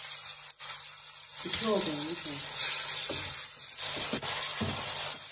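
Sliced onions, carrots and tomatoes sizzling steadily in a stainless-steel pan, with a spatula stirring and scraping against the pan a few times in the second half.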